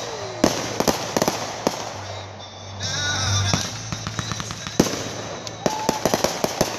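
Fireworks launched from the ground and bursting overhead: clusters of sharp bangs and crackles, with a rushing hiss about three seconds in.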